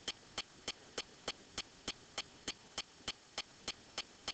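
Faint, steady ticking at an even pace of about three short clicks a second.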